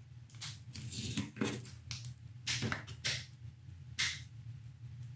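Light, irregular clicks and scrapes of a small dash cam circuit board and its plastic parts being handled while the battery is worked loose, over a steady low hum.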